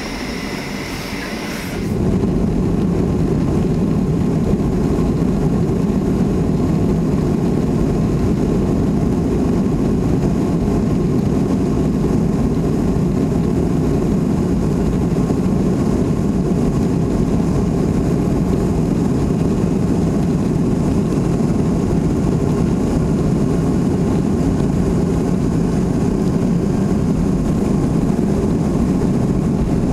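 Jet airliner noise: a loud, steady rumble of engines and rushing air that begins suddenly about two seconds in and holds unchanged.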